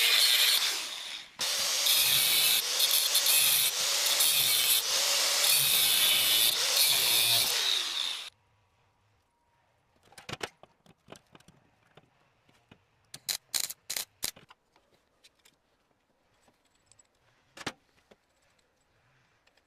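Homemade power-tool machine running loudly with a dense, hissing noise. It dips briefly about a second in, then stops abruptly about eight seconds in. After that come scattered light clicks and knocks.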